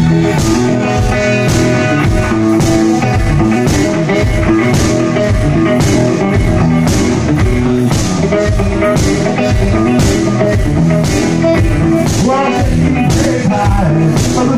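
Live amplified music: an electric guitar played over a steady, evenly repeating drum beat, in an instrumental stretch of a country-rock song.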